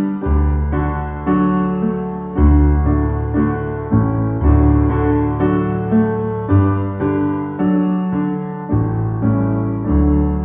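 Solo piano playing a slow church postlude: chords over low bass notes, each struck and left to fade before the next.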